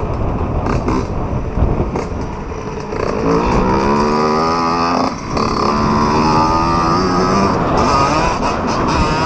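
Dirt bike engine revving up, its pitch rising, dropping briefly a little past halfway, then rising again, over steady wind and trail noise.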